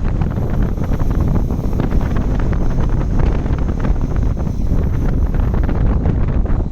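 Liebherr R954C hydraulic excavator's diesel engine running steadily, with heavy wind buffeting the microphone.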